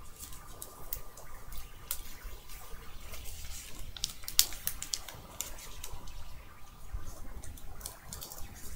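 Paper wrapper of a trading-card pack crinkling and tearing as it is handled and opened by hand: irregular crackles and rustles, the sharpest about four and a half seconds in.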